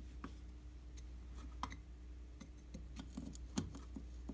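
Small irregular metallic clicks and ticks of a screwdriver working the float-bowl screws of a Mikuni carburetor as they are snugged down corner to corner, the loudest click about three and a half seconds in, over a faint steady hum.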